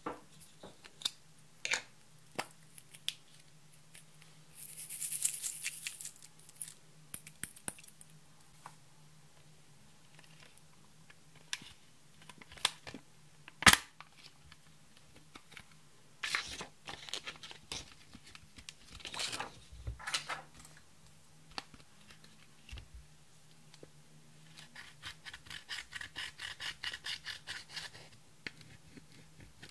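Plastic makeup packaging being handled: scattered clicks and taps, with one sharp click about 14 seconds in as the eyeshadow palette is opened. Near the end, a fast run of scratchy strokes as a metal dotting tool crushes and scrapes pressed eyeshadow in its pan.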